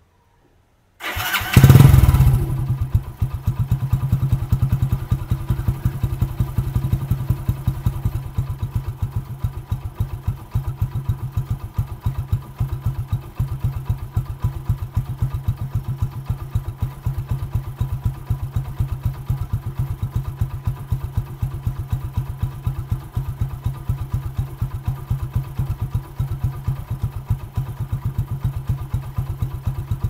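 Hero Passion Pro motorcycle's single-cylinder four-stroke engine starting about a second in, briefly loud as it catches, then settling into a steady, even idle.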